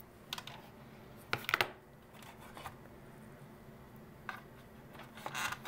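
Scattered light clicks and clatter of a pair of pliers and small plastic parts being handled, the loudest cluster about a second and a half in.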